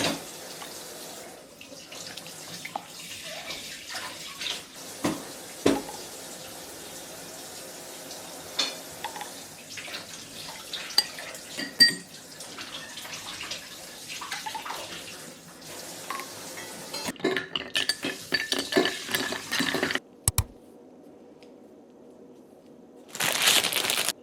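Water running from a kitchen tap into a sink, with dishes and cutlery clinking as they are handled. The water stops about 20 seconds in, and a brief rush of noise follows near the end.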